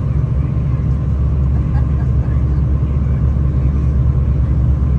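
V/Line passenger train running at speed, heard from inside the carriage: a steady, loud, deep rumble.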